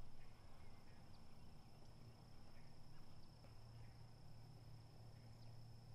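Faint outdoor ambience: a steady high-pitched insect trill, with a few faint short chirps over a low hum.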